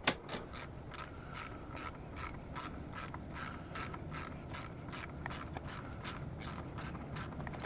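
Socket ratchet clicking steadily, about three clicks a second, as a bolt is worked loose.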